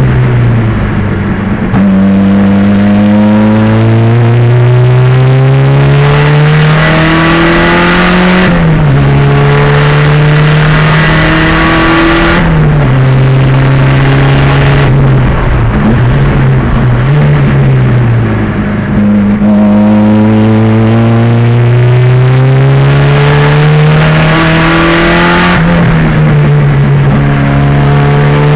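Race-prepared Pontiac Fiero's 2.0-litre turbocharged engine under hard acceleration, its pitch climbing through the gears with several gear changes, and falling back twice as the driver lifts and slows, then pulling again.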